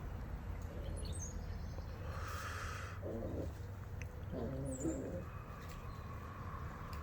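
Newborn puppies whimpering: two short whines, one about three seconds in and a longer one near five seconds, over a low steady hum.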